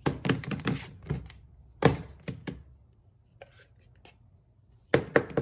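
A metal putty knife scooping Bondo body filler out of its metal can, clicking and knocking against the can and a paper plate: a quick run of clicks at the start, sharp knocks around two seconds in, and three more near the end.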